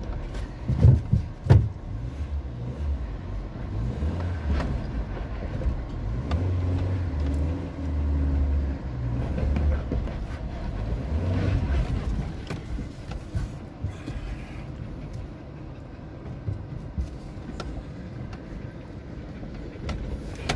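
Suzuki Jimny's engine running low and steady, heard from inside the cabin as it crawls down a rocky track, with sharp knocks and clunks from the tyres and body over rocks, strongest in the first couple of seconds.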